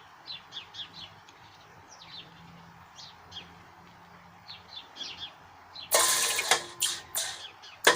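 Small birds chirping over and over. About six seconds in, a series of loud metallic clangs begins, with a ringing tone that sounds like a bell.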